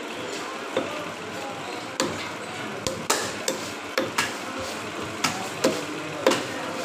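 A large knife cutting a black pomfret on a wooden log chopping block: about a dozen sharp knocks of the blade into fish and wood at uneven intervals, the loudest near the end.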